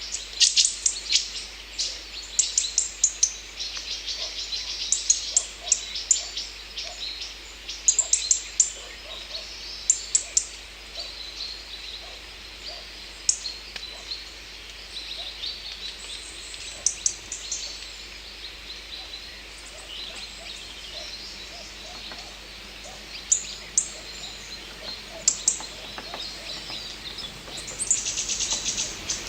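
Songbirds chirping: short, high-pitched chirps come in quick clusters every second or two, over a faint steady outdoor hiss.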